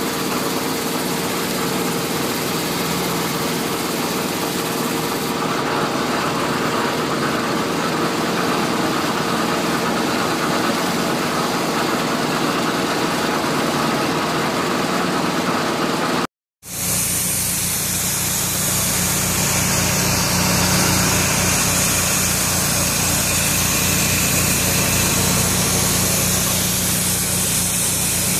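Steady running of an engine-driven machine with a hiss over it. The sound cuts out for a moment about 16 s in, then comes back as a steadier hum.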